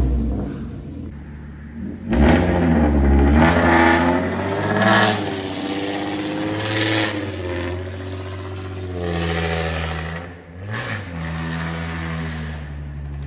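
A motor-vehicle engine, freshly started, being revved several times, its pitch rising and falling with each rev, then settling to a steady idle near the end.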